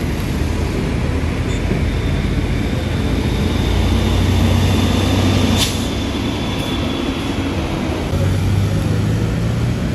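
Low diesel rumble of a coach bus pulling away down the road among other traffic, swelling about four seconds in and again near the end. A short high hiss sounds about halfway through.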